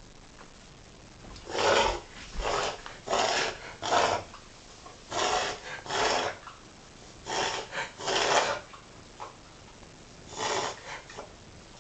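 A dog reverse sneezing: about ten rapid, forceful, rasping inhalations through the nose in quick runs, then a last few near the end. This is the paroxysmal spasm set off by irritation of the soft palate and throat.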